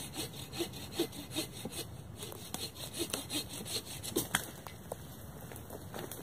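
Agawa Canyon Boreal 21 folding saw cutting through a fallen tree, with quick even back-and-forth strokes, about two to three a second, that stop about four and a half seconds in.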